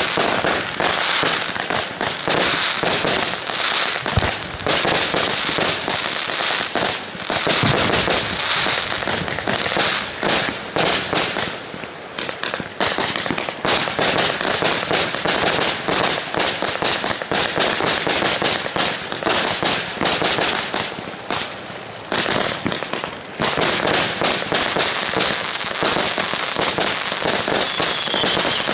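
Lesli Wazabi Box, a 100-shot 20 mm fireworks cake, firing in fast succession: a dense, continuous stream of shots and bursts, with short lulls about 12 and 22 seconds in.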